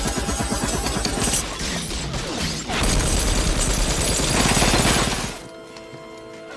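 Rapid, sustained movie gunfire mixed with crashing and shattering, which cuts off abruptly about five seconds in and leaves a quieter steady drone.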